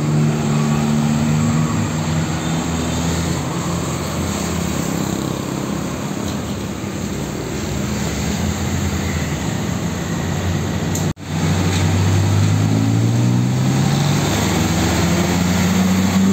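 Heavy diesel trucks passing on a road: a Hino FM260Ti tractor unit's engine running as it pulls through, then steady tyre and traffic noise as a fuel tanker goes by. After a sudden break about eleven seconds in, another truck's diesel engine rises steadily in pitch as it accelerates past.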